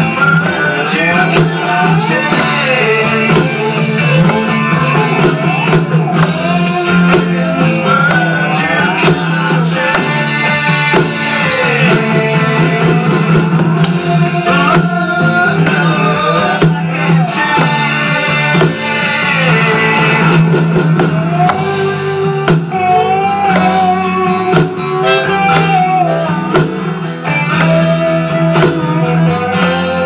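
A rock song with singing and guitar plays. An electronic drum kit is played along with it, its struck pads and cymbals keeping a steady beat.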